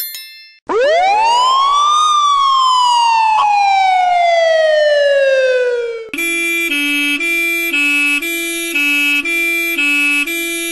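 Siren sound effects: a single wail rising for about a second and then falling slowly over four seconds, followed about six seconds in by a two-tone hi-lo siren switching between two pitches about twice a second.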